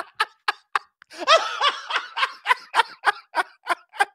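People laughing hard in rapid short bursts, about four or five a second, with a short break about a second in.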